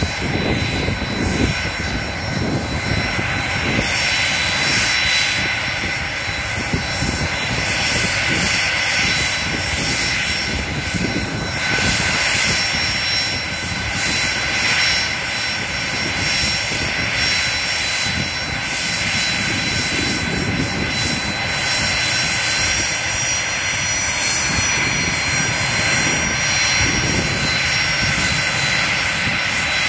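Small business jet's twin rear-mounted jet engines running at low taxi power: a steady rushing jet noise with thin high-pitched turbine whines on top, one of which rises slightly about two-thirds of the way through.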